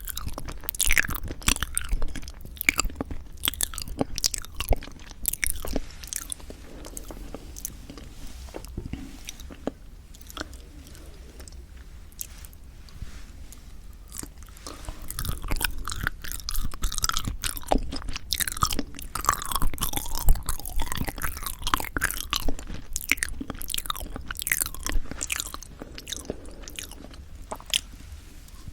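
Close-miked chewing of yanggaeng, a soft sweet red-bean jelly: a dense run of moist, sticky mouth clicks and smacks. The chewing thins out and goes quieter for a few seconds near the middle, then picks up again.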